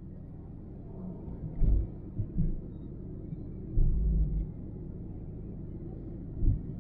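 Car driving on a paved road, heard from inside the moving vehicle: a steady low rumble of road and engine noise, broken by several brief low thumps.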